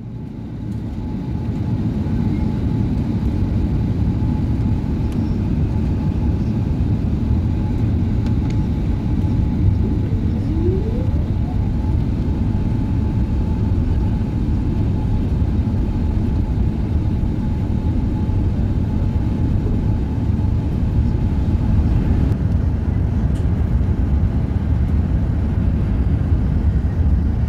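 Steady low rumble of airflow and engines inside an Airbus A380's passenger cabin on its landing approach, with a faint steady whine above it.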